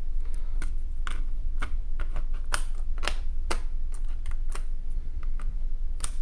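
Irregular plastic clicks and taps from a ThinkPad T430 laptop keyboard as a thin clip is worked under its edge to pry it up from the chassis. A steady low hum runs underneath.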